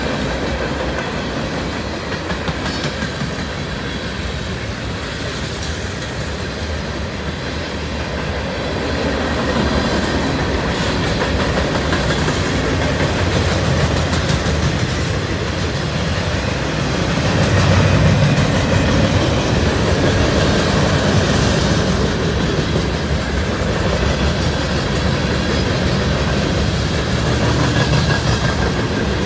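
Cars of a Norfolk Southern mixed freight train rolling past at speed: a steady rumble of steel wheels on rail that grows louder about nine seconds in.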